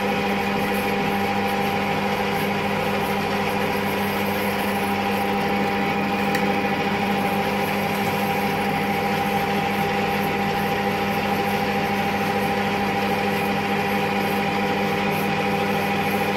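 1942 Colchester Master 6-inch lathe running at a steady speed with a constant hum while the tool, hand-fed on the compound slide, takes a continuous cut along a Morse taper.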